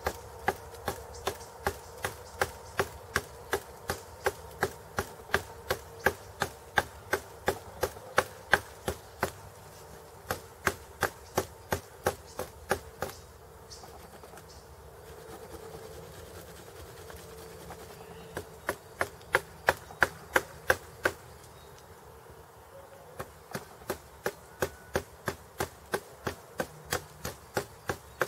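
A sharp stone flake cutting into a thin living stem at its base: short, sharp strokes about twice a second in runs, with a few seconds' pause twice, over a faint steady buzz.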